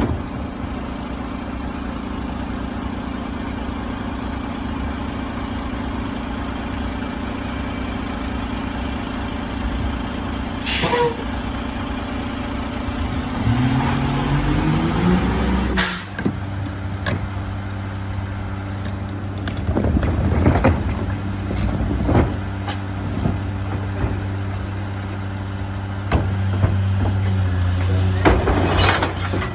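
Mack LR McNeilus rear-loader garbage truck's engine running steadily. About halfway through it revs up, rising in pitch, and a short air hiss cuts in. There is another hiss earlier and scattered knocks later.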